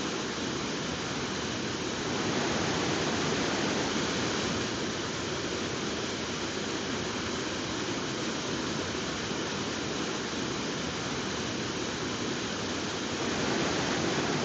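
Waterfall: a steady rush of water falling onto rocks, with slight swells in loudness.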